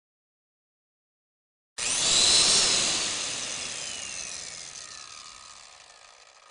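A power tool starts abruptly about two seconds in, then winds down over several seconds, its pitch falling as it fades.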